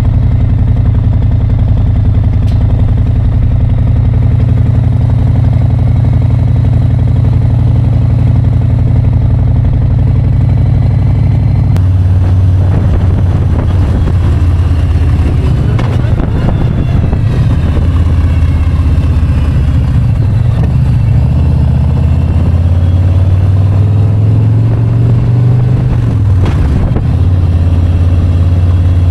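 Harley-Davidson touring motorcycle's V-twin engine running steadily, then from about twelve seconds in riding at road speed with more wind and road noise. Near the end the engine pitch rises and then drops as it accelerates and shifts.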